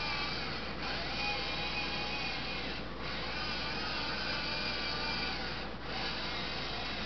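Small electric drive motors of a homemade wheeled robot whining and whirring as it drives and turns on a tile floor, cutting out briefly three times.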